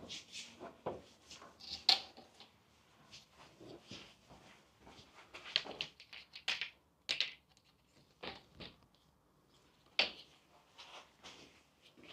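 Scattered light clicks, knocks and rustling of tools and long plastic PVC corner strips being handled and picked up. The sharpest clicks come about two seconds in and again near the end.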